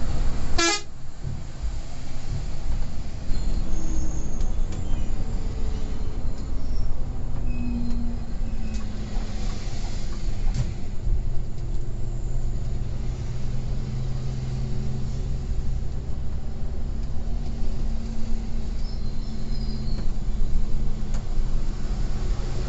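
Scania coach running on the road, a steady engine drone with road noise, and a short horn toot about half a second in.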